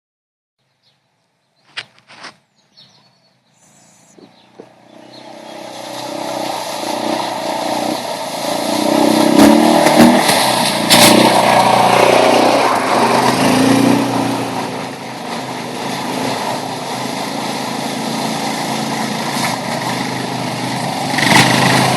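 Quad ATV engines running, growing steadily louder over several seconds and then staying loud and steady. A few clicks sound near the start, before the engines come in.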